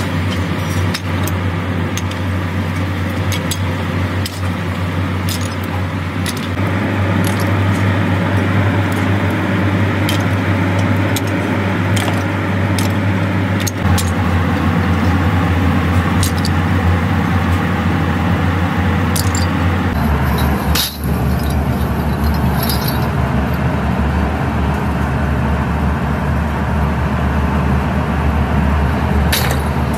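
Scattered clinks and clatter of scrap metal and steel pipe pieces landing in a brick-lined furnace pit, over a steady low machinery hum.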